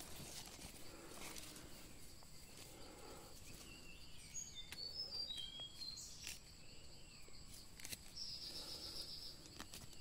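Faint outdoor forest ambience with a few short, falling bird chirps about four to five seconds in and a steady high trill near the end, with a few light handling clicks.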